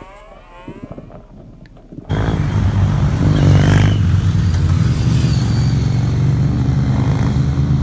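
A group of motorcycles riding past, engines running loud and steady with some rising revs. The engine sound comes in abruptly about two seconds in, after a fairly quiet start.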